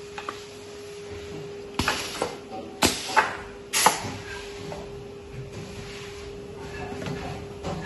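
Pneumatic stretcher bar assembly machine cycling: about four sharp clacks of its air-driven clamps and rams, from about two seconds in until four seconds in, each with a short hiss of exhaust air, over a steady hum.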